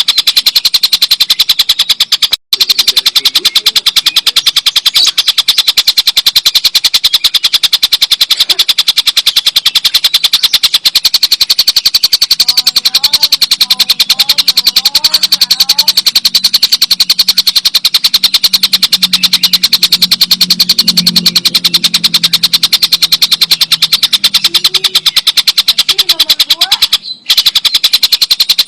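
A tengkek buto kingfisher giving its long, loud rattling 'ngekek' call: a fast, even rattle that runs on almost without a break, pausing briefly about two and a half seconds in and again near the end.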